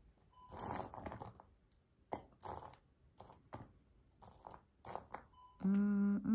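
Small metal costume jewelry pieces clicking and clinking together in scattered little clusters as fingers sift through a loose pile on a table. Near the end a person's voice hums one held low note.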